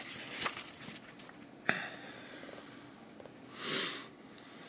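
A person breathing out hard through the nose close to the microphone, one breath about half a second long near the end, after a single sharp click a little under two seconds in.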